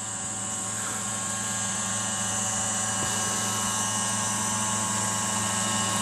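Remote-control crop-spraying helicopter running steadily, an even engine and rotor hum with a high whine, growing slowly louder.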